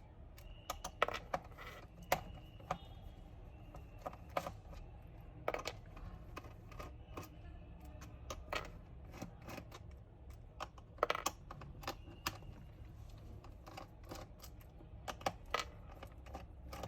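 Faint, irregular clicks and taps of a magnetic screwdriver unscrewing the small screws from a laptop's plastic base panel.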